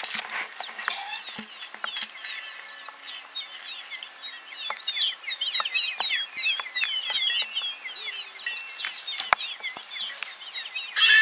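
Baby chicks peeping: many quick, high chirps tumbling over one another, with a few soft clicks. Right at the end a louder, fuller sound cuts in abruptly.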